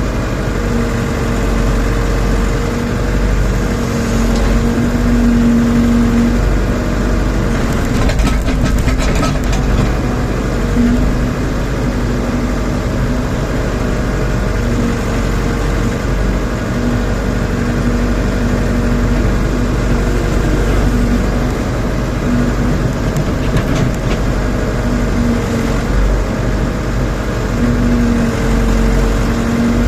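Rondon backhoe loader's diesel engine running steadily under working load, with a pitched hum that swells and fades as the hydraulics work. A short clatter about eight seconds in.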